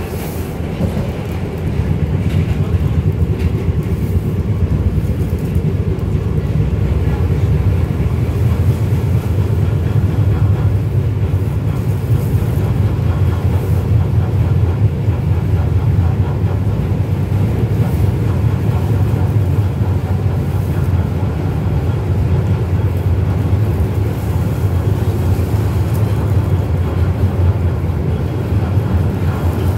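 An R160 subway car in motion, heard from inside the car: a steady low rumble that grows a little louder in the first couple of seconds and then holds.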